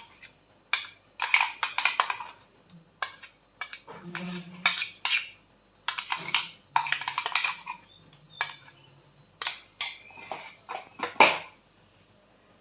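A spoon scraping ground ginger paste out of a container into a cooking pan, in a series of short scrapes with sharp taps of the spoon against the rim.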